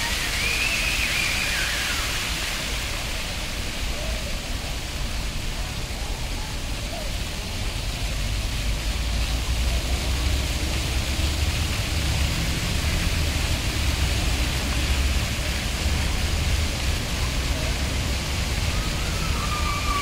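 Steady hiss of water from a row of ground-level fountain jets splashing onto paving, with a low rumble that swells in the second half.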